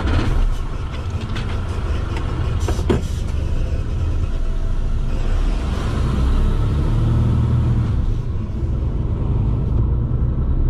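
Semi-truck's diesel engine running steadily, with a few light clicks in the first seconds.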